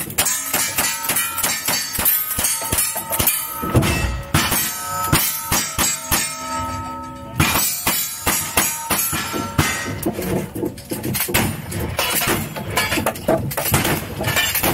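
Rapid gunfire from a cowboy action shooting stage: a fast string of shots, with the steel targets ringing after hits. There is a brief lull about seven seconds in, then the shots start again.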